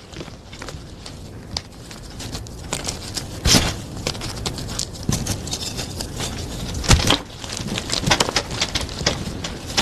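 Plain gym chalk being crushed, a run of dry crunches and crackles over a powdery rustle, with the loudest crunches about three and a half and seven seconds in.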